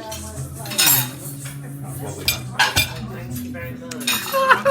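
Cutlery and dishes clinking, with a few sharp knocks in the middle, over a steady low hum.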